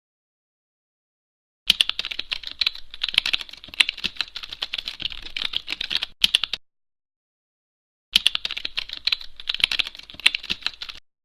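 Typing on a computer keyboard: two runs of rapid key clicks, separated by a pause of about a second and a half.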